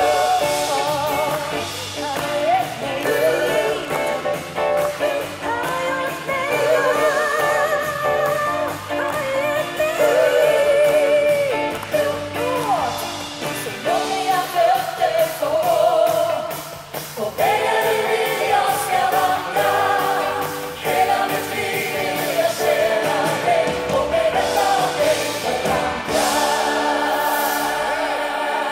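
Live gospel-style song: a woman's lead vocal with a group of singers joining in, backed by a band, closing on a long held chord near the end.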